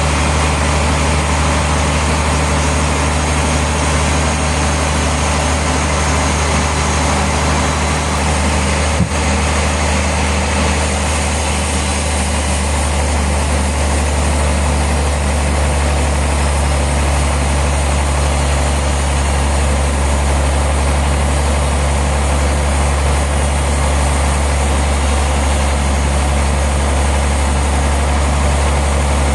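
A sawmill's engine running steadily at a constant speed, with a deep, even hum. There is a single short knock about nine seconds in.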